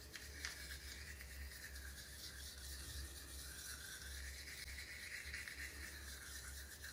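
Manual toothbrush scrubbing against the lower front teeth: a faint, steady brushing rasp.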